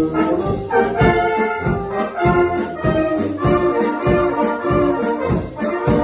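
Brass band playing a Bohemian-style polka: tubas, trombones and trumpets over a steady, regular beat.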